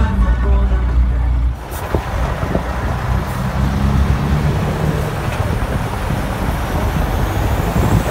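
A truck's diesel engine running close by, loud and low, for about a second and a half. It cuts off abruptly and gives way to a steady mix of truck engines and road noise as a convoy of trucks drives along a road.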